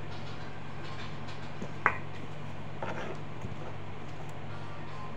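Vegetables being handled on a plastic cutting board beside glass bowls: a few light knocks and one sharp tap a little under two seconds in, over a steady low hum.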